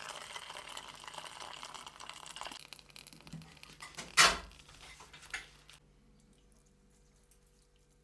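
Water running from a kitchen tap into a pot, followed by a loud clunk of cookware a little past four seconds in and a lighter knock about a second later.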